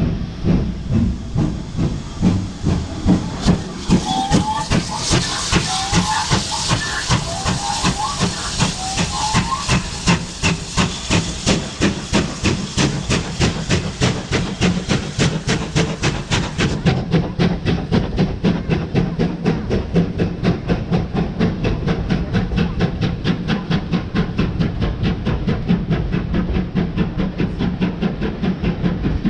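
GWR 2-8-0 steam locomotive pulling away from a stand, its two-cylinder exhaust beating in even chuffs that quicken as it gathers speed. A loud hiss of steam runs over the beats for the first half and cuts off suddenly.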